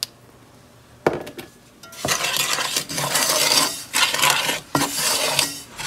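Wooden spoon stirring dry brown and granulated sugar in a metal pot: a gritty scraping that starts about two seconds in, after a few light clicks.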